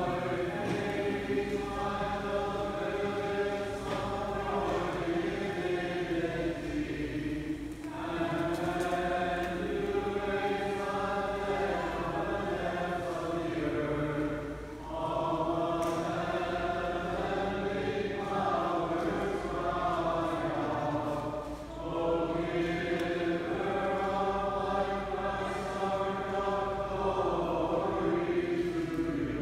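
A group of voices singing Byzantine liturgical chant, in long sustained phrases with brief pauses for breath about every seven seconds.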